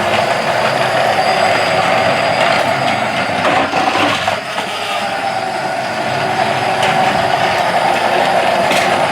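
Battery-powered toy train running steadily, its small motor and gears whirring.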